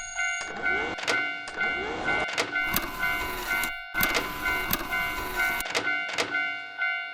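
Japanese railroad crossing alarm ringing in a steady, even on-off rhythm of high tones, with sharp clacks at irregular moments over it.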